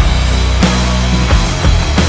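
Loud rock music with electric guitar, bass and regular drum hits.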